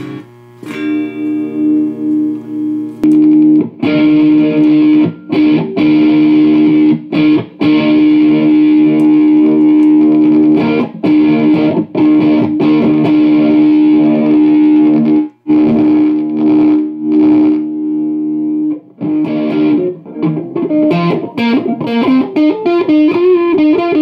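Electric guitar played through the Behringer GMX212 modeling amp's second channel into an external test speaker, to check that channel for crackle: a held chord, then chords struck again and again with short breaks, then a run of changing single notes near the end.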